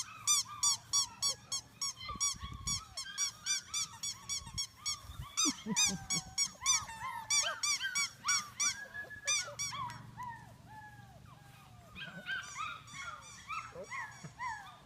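Labrador puppies yelping and whining: a quick run of high squealing yelps, a few a second, mixed with falling whimpers, easing off for a moment near the end before starting again.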